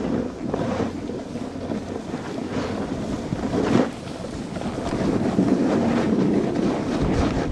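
Wind rushing over the microphone of a skier moving downhill, with the hiss and scrape of skis on snow, swelling and fading through the turns and briefly louder a little under four seconds in.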